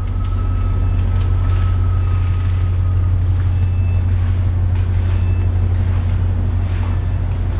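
Steady low hum of a container ship's machinery on the navigation bridge while the ship lies at anchor, with faint short electronic beeps now and then.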